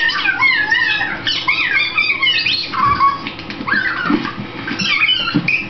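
High-pitched squealing and squeaky voice sounds, sliding up and down in pitch in short broken glides.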